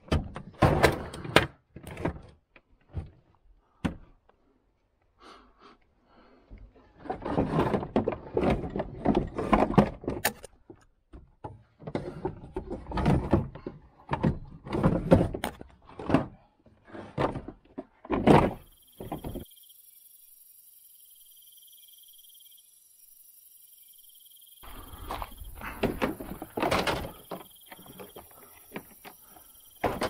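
Tools and plastic cases being shoved and fitted into a wooden crate by hand: repeated knocks, thumps and scraping as things bump against the crate's boards and each other, with a pause of a few seconds past the middle.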